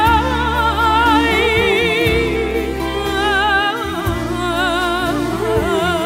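A woman singing long held notes with a wide vibrato over a steady instrumental backing, in a Turkish pop ballad.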